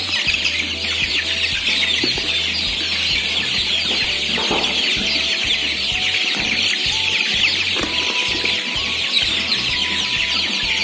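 Dense, continuous peeping and chirping of a large flock of 27-day-old kampung super chickens crowding and scrambling at the feeders, excited over fresh feed.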